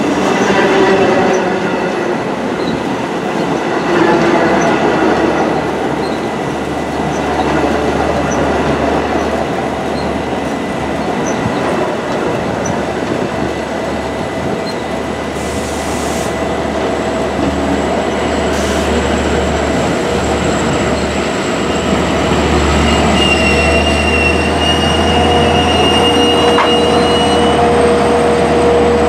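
Long Island Rail Road bi-level coaches rolling past at close range: steady wheel-on-rail noise with faint clicks, and a thin high wheel squeal in the second half. In the last several seconds the diesel locomotive draws level, adding a low engine drone and a steady high whine.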